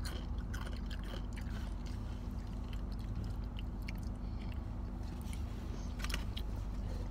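Car's engine idling, a steady low hum heard inside the cabin, with faint scattered clicks over it.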